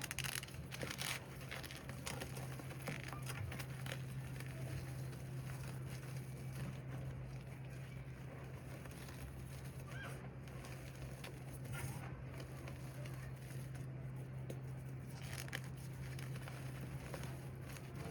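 Reformed cornstarch slabs topped with loose cornstarch being pressed and crushed, giving scattered squeaks and crunches.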